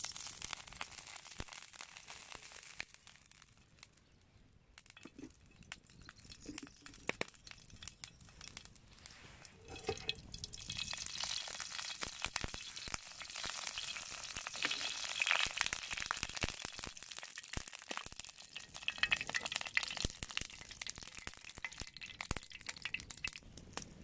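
Oil heating in a frying pan over a wood fire, sizzling and crackling. The sizzle grows louder and denser about ten seconds in.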